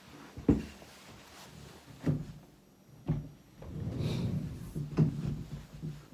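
A handful of separate dull knocks and bumps, with a stretch of rustling near the middle, as a person gets up from a desk chair and moves around the room. The sharpest knocks come about half a second in and again near the end.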